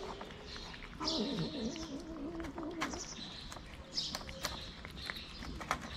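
A cat eating from a plastic tub: a steady run of small wet chewing and licking clicks. About a second in, a wavering low call lasts around two seconds, and birds chirp in the background.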